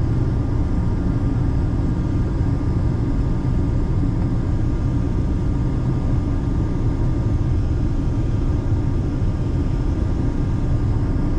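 Steady cabin noise of an airliner in flight: an even, low rush of engines and airflow, with faint steady tones above it.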